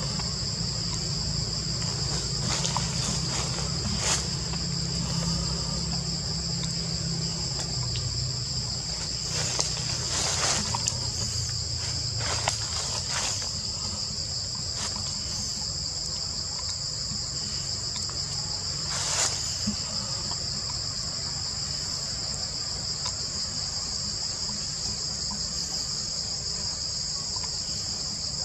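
Steady high-pitched insect chorus buzzing without a break, with a few short clicks in the first twenty seconds.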